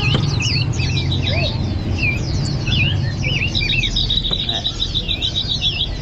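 Many caged white-eyes and other small songbirds chirping and calling over one another in short whistled notes. About three and a half seconds in, one bird starts a fast run of repeated chirps that lasts about two seconds. A low steady rumble of street traffic runs underneath.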